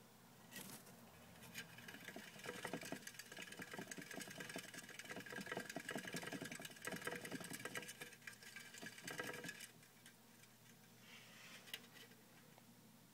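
Plastic hamster exercise wheel spinning with a rapid ticking rattle as a Syrian (teddy bear) hamster runs in it. The rattling starts about a second and a half in and stops about ten seconds in.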